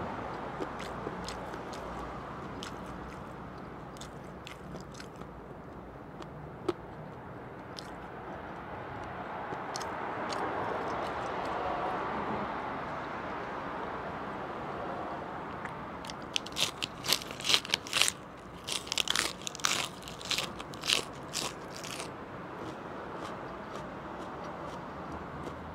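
Close-miked eating sounds: quiet chewing with occasional small clicks over a steady background noise, then a run of loud, crisp crunches for about six seconds past the middle as fresh lettuce leaves are bitten and chewed.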